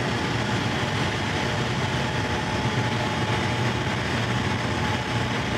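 Steady low machinery hum with a faint thin whine above it, unchanging throughout.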